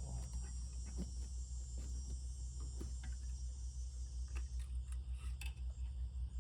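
Steady high chirring of insects, crickets by the sound of it, over a low steady hum, with a few faint light clicks.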